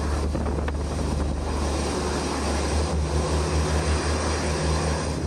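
Turbofan engines of a C-5 Galaxy running as the aircraft taxis on the runway: a steady deep rumble under a broad jet roar.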